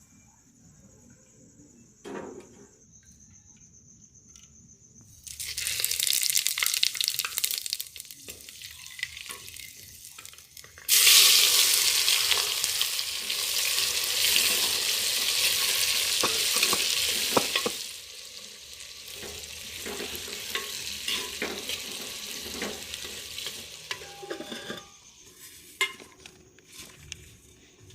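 Food frying in hot oil in a cooking pot, sizzling in stretches with occasional knocks of a spoon stirring. It starts about five seconds in and is loudest for several seconds in the middle.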